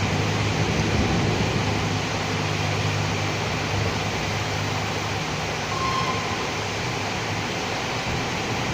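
Steady rain hissing on a city street. The low hum of a passing vehicle's engine fades out about halfway through.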